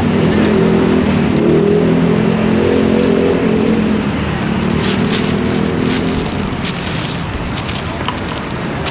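A motor vehicle's engine running steadily at a low hum, fading out past the middle. From about five seconds in, a plastic bag crinkles in short rustles.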